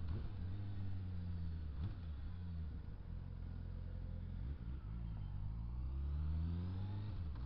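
Honda Hornet motorcycle's inline-four engine heard from the bike while riding, the revs easing off about a second in and climbing again past the middle as it pulls away, over wind and road noise.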